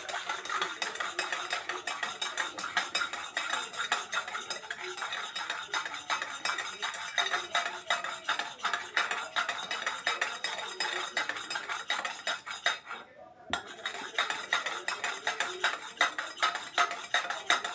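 Metal cutlery clinking and scraping rapidly against dishes, like a spoon stirring or utensils being handled, with a brief pause about two-thirds of the way through.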